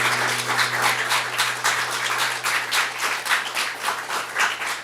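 Audience applauding: a dense patter of many hands clapping, with a steady low hum underneath.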